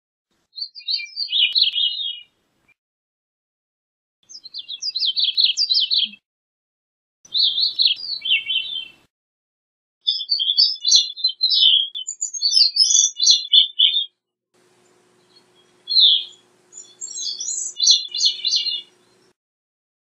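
Gray-cheeked thrush singing: phrases of rapid, high, quickly shifting notes, repeated with pauses of a second or two between them.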